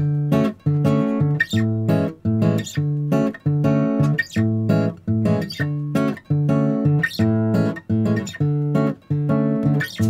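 Background music: acoustic guitar strumming chords in a steady rhythm, about two strokes a second.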